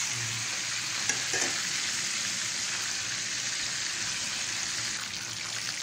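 Food frying in hot oil on a stove, a steady sizzle, with a light click of a metal utensil about a second in.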